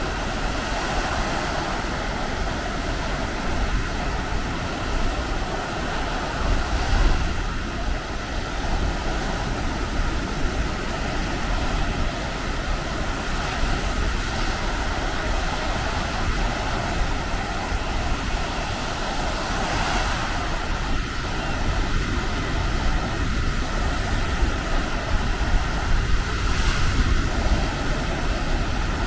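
Sea surf washing onto a beach, swelling about every six or seven seconds, with wind rumbling on the microphone.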